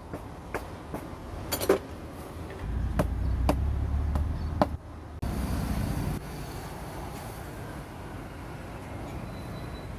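Scattered sharp metallic clicks and knocks from hand tools working on a scooter wheel, with a low rumble under them in the middle. About five seconds in the sound cuts abruptly to a steady background hiss.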